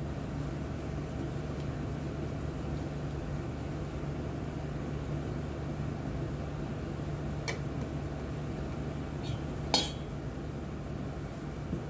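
Kitchenware clinking at a sushi counter: a light clink, then a louder ringing one about ten seconds in, over a steady low hum.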